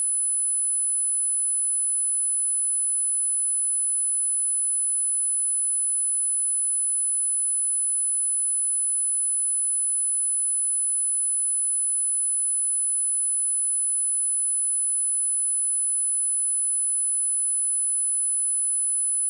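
A pure, steady, high-pitched 10044 Hz sine-wave test tone, holding one pitch and level without a break. It is a speaker test tone, also used to shake water and dust out of a phone speaker.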